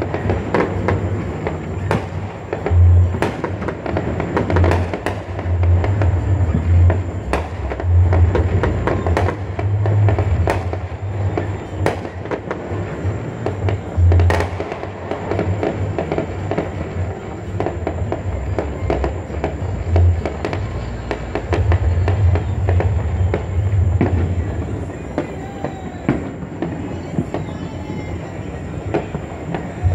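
Fireworks and firecrackers going off all over a city: many scattered bangs and crackles, with a loud bang about three seconds in and another about fourteen seconds in, thinning out in the second half. Music with a heavy, pulsing bass plays underneath.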